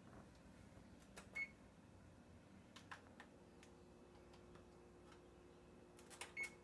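Near silence with a few faint clicks and two short, high beeps, one about a second and a half in and one near the end. A faint steady hum comes in about halfway through.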